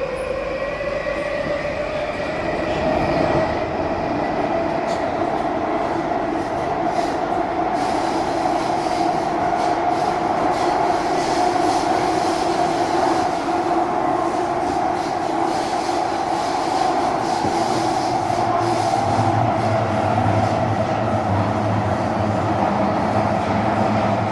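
Singapore MRT train heard from inside the carriage as it runs between stations. The motors give a whine that rises in pitch over the first several seconds as the train picks up speed, then holds steady over the running rumble of the wheels on the track. A low hum joins about three quarters of the way through.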